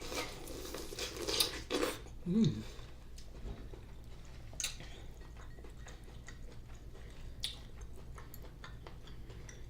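Close-up eating sounds of corn on the cob soaked in seafood-boil juice: a wet burst of biting and sucking in the first two seconds, a brief 'mm' hum, then scattered soft chewing clicks.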